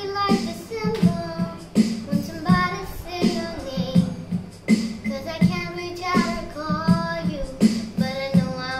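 A girl singing a song over an electronic keyboard accompaniment with a steady beat.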